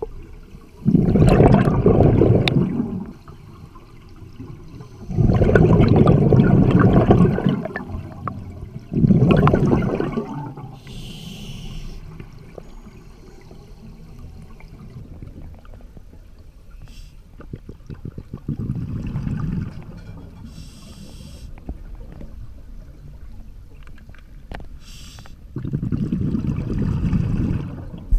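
Scuba diver breathing through a regulator underwater: about five loud gushes of exhaled bubbles, with a faint high hiss of inhaling between some of them.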